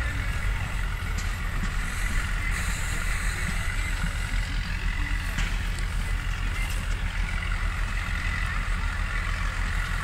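Farm tractor engine running steadily, a low rumble.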